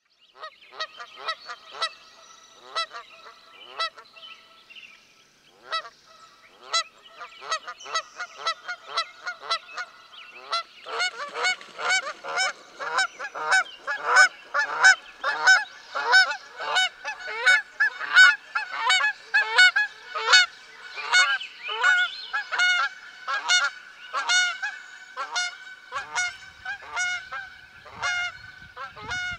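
A flock of geese honking: scattered calls at first, then many overlapping honks in quick succession from about 11 seconds in.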